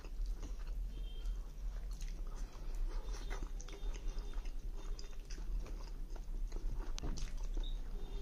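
A man chewing a mouthful of rice and chicken curry close to the microphone, with irregular small mouth clicks throughout.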